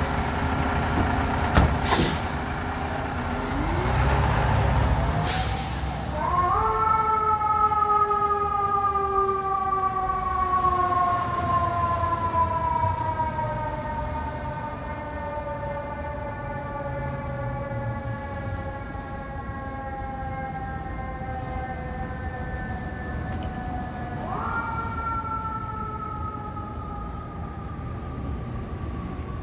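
Fire engine pulling out on a run, a 2015 KME Severe Service Predator pumper: diesel rumble and two short sharp hisses, then its mechanical siren winds up a few seconds in and coasts slowly down in pitch as the truck drives off. Near the end the siren is wound up sharply again and falls away once more.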